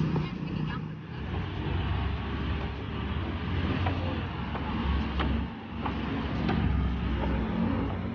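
Steady low rumble of road vehicles, with a few light footsteps knocking on wooden stair treads.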